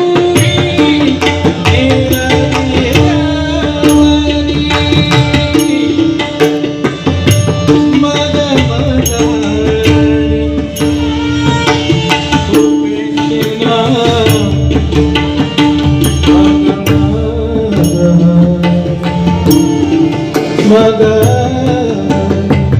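Devotional bhajan music: a tabla rhythm under a harmonium melody of held notes, playing continuously.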